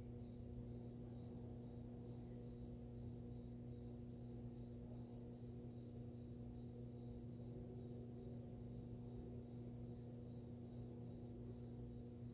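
Aquarium filter pump humming steadily, a low, even electrical hum.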